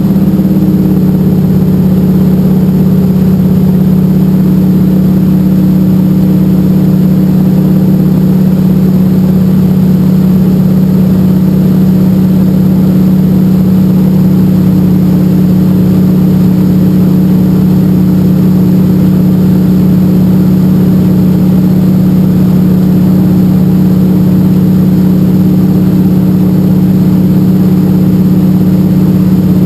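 De Havilland Canada DHC-2 Beaver's nine-cylinder radial engine and propeller running steadily, heard from inside the cockpit as a loud, even drone with a strong low hum.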